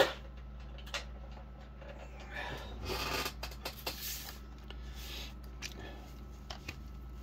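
Hard plastic toy parts being handled: a sharp click at the start, scratchy rubbing about three seconds in, then small plastic clicks as a toy motorcycle figure and its clear plastic display stand are picked up.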